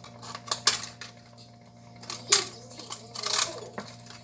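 Light clinks and clatter of kitchen utensils against dishes, with a few sharp knocks about half a second, two and a half seconds and three and a half seconds in, over a steady low hum.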